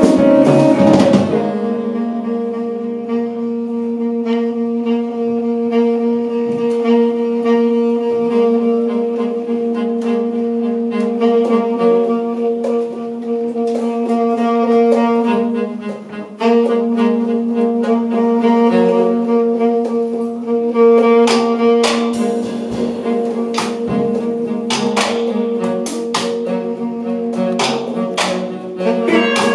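Live jazz from a quartet of tenor saxophone, cello, electric guitar and drums playing a slow passage: one long held low note, broken briefly about halfway through, with scattered drum and cymbal hits in the second half.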